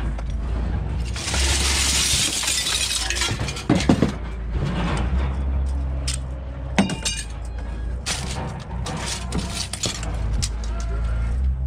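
Loose broken window glass sliding, crunching and clinking as aluminum window frames are dragged out of a pickup bed. A rushing slide of glass comes about a second in, then sharp knocks and ringing clinks of glass and metal, and a run of small clinks near the end.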